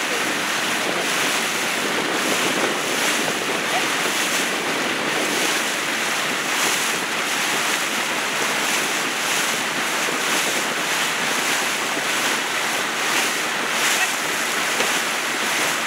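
Wind buffeting the microphone over a steady wash of water around an outrigger canoe being paddled.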